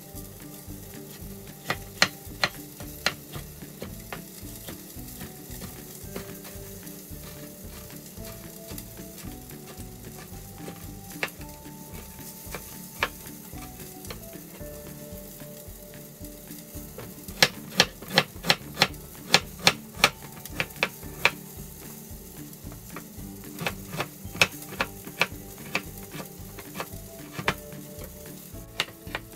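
Food sizzling in a frying pan, with sharp clicks of a cooking utensil against the pan, scattered at first and then a quick run of about three a second in the second half. A soft tune plays faintly underneath.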